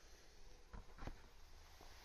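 Near silence: faint room hiss with two soft clicks about a second in.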